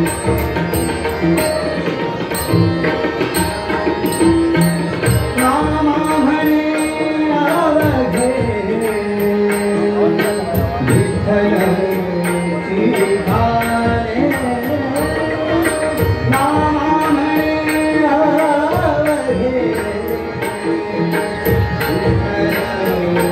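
Live abhang (Marathi devotional song): a male singer's gliding melodic vocal lines over sustained harmonium, with tabla drumming and a steady high ticking of small hand cymbals keeping the beat.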